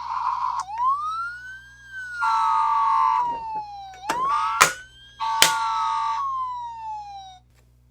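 Toy police cruiser's electronic siren effect: two slow wails that rise and then fall, each with a buzzy horn-like blare over it, cutting off shortly before the end. Two sharp clicks, like button presses, come about halfway through.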